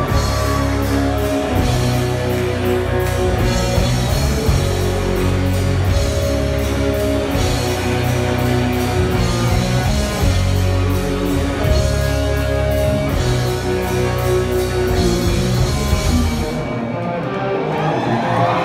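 Live rock band playing: electric guitars over a drum kit, with a steady beat. Near the end the bass and cymbals drop out for a moment.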